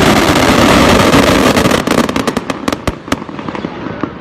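Daytime coloured-smoke fireworks going off: a dense, loud barrage of overlapping bangs, thinning after about two seconds into a string of separate sharp cracks that die away.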